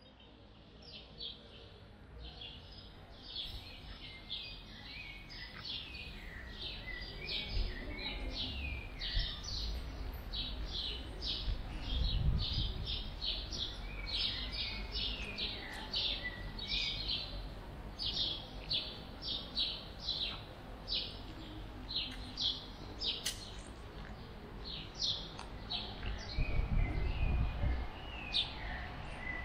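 Small birds chirping in many short, quick calls that keep going without a break, over a low background rumble that swells briefly about twelve seconds in and again near the end.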